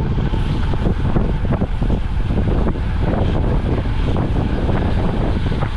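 Wind buffeting the microphone of a camera on a moving road bicycle: a loud, steady, rough rushing with ragged gusts.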